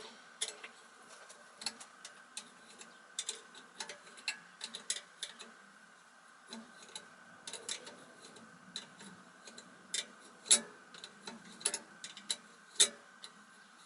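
Irregular light clicks and taps of hand tools on metal fasteners and parts while the vacuum cleaner's motor is dismantled, a few louder knocks near the end.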